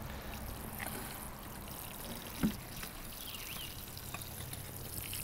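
Water pouring in a steady trickle from a plastic watering can onto the potting soil around a freshly planted tomato seedling in a plastic bucket. One brief thump about halfway through.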